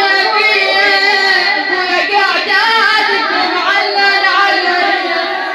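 A woman chanting an Arabic lament (nai) in a wavering, drawn-out line without a break.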